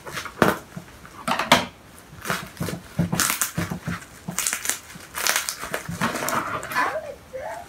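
Hands handling and pulling at a parcel's plastic wrapping and tape, a run of irregular crinkles, rustles and crackles.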